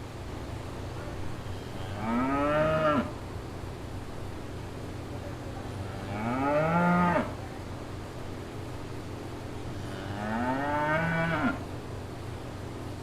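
A cow mooing three times, about four seconds apart, each moo lasting about a second and rising then falling in pitch.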